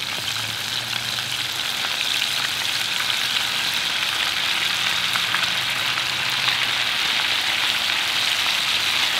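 Breaded alligator tail nuggets deep-frying in oil at about 375–385 °F in a cast-iron Dutch oven: a steady, dense sizzle that grows slightly louder as more pieces are dropped in.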